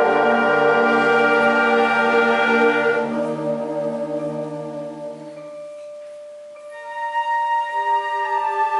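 Concert wind band playing: a loud held chord that fades away over about six seconds, then quieter, higher sustained notes come in about seven seconds in.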